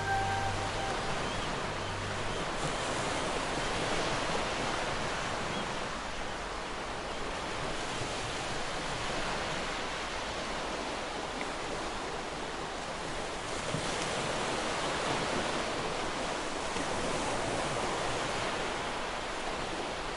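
Ocean surf: a steady wash of waves that swells and eases every few seconds.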